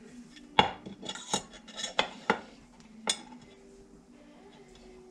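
Sharp metallic clinks and knocks, about five in the first three seconds, as chainsaw crankcase halves are handled and fitted together around the crankshaft.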